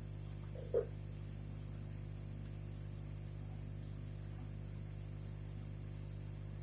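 Steady electrical mains hum with a faint hiss, and a brief faint sound just under a second in.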